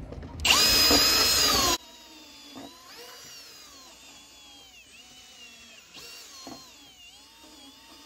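Milwaukee Fuel cordless drill widening a hole in a fibreglass boat deck. It runs with a loud, high whine for about the first second and a half, then goes on more quietly, its pitch dipping and rising as the bit loads and frees in the hole.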